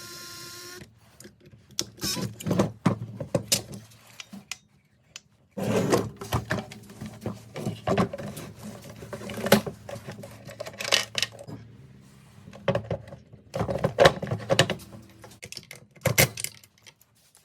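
Hand tools and small metal engine parts clicking and clinking in irregular bursts during bench work on a two-stroke blower's top end, with a brief ringing tone in the first second.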